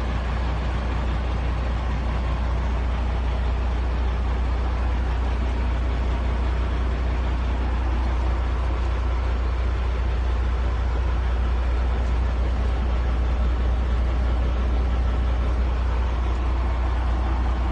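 Peterbilt truck's diesel engine idling, a steady low drone heard from inside the cab.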